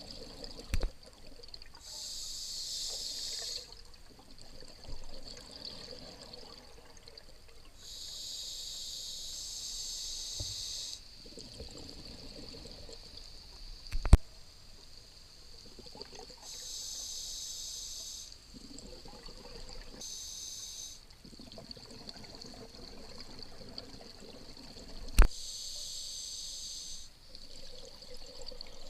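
Scuba diver breathing through a regulator underwater: about five bursts of exhaled bubbles rushing past, each lasting a couple of seconds, with quieter gaps between them. Three sharp clicks stand out, the loudest about halfway and near the end.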